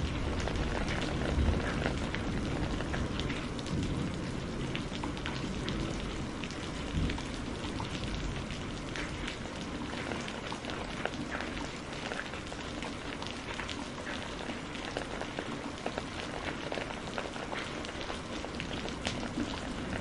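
Steady heavy rain falling, a dense hiss with many individual drops striking close by. A low rumble underlies the first several seconds and then dies away.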